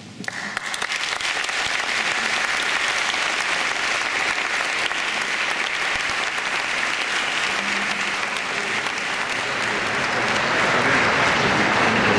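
Audience applauding. The applause starts abruptly, holds steady, and grows a little louder near the end.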